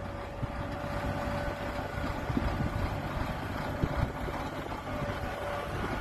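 Diesel engine of a tracked excavator running steadily under load as the machine digs and swings a bucket of earth.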